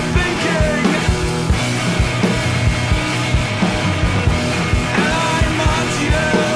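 Rock song recording from a 1997 7-inch record: a full band with a steady, fast drum beat, about four hits a second, under the other instruments.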